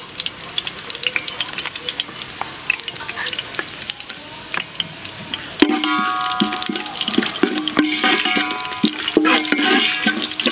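Whole spices, fennel seeds among them, sizzling and crackling as they are tempered in hot oil in an aluminium pot. From about halfway, a metal ladle stirs and scrapes against the pot in repeated strokes, and the pot rings.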